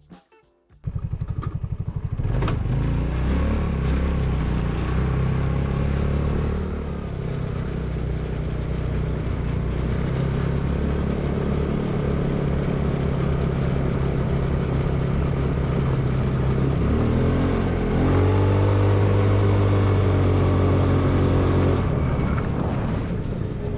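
Hammerhead GTS 150 go-kart's GY6 150cc single-cylinder engine starting abruptly about a second in and running steadily, its pitch shifting up and down about three-quarters of the way through.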